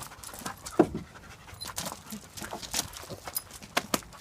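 A dog panting quickly, a short breath about three times a second.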